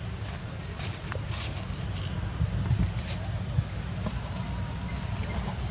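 Outdoor insect chorus: a steady high-pitched buzz with short chirps repeating about once a second, over a continuous low rumble and a few faint clicks.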